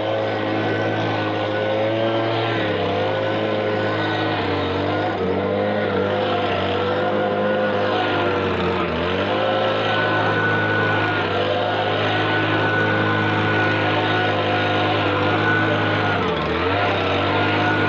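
Stihl BG56 leaf blower's two-stroke engine running steadily, its speed dipping briefly now and then before picking up again.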